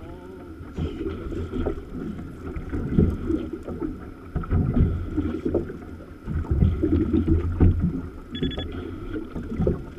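Wind buffeting the microphone in irregular low gusts aboard a small boat at sea, with the wash of water around the hull.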